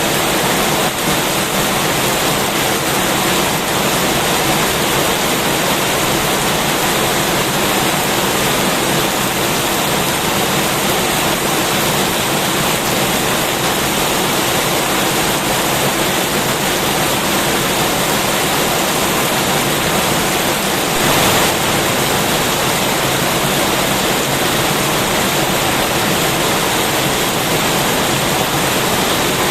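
Heavy rain falling steadily, a dense, unbroken hiss, with a brief louder surge about two-thirds of the way through.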